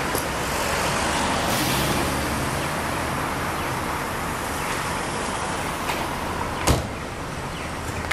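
1955 Jaguar XK140's straight-six idling steadily against street traffic noise, with one sharp knock about two-thirds of the way through as the car door is shut.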